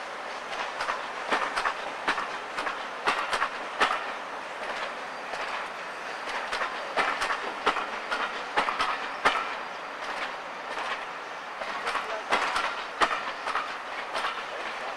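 Steam-hauled passenger train running past, its carriage wheels clicking over rail joints in irregular clusters over the steady noise of the moving train.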